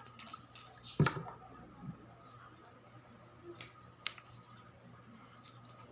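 Plastic glue bottles being opened and handled: a few sharp clicks of caps, the loudest about a second in, two smaller ones later, with faint rustling between.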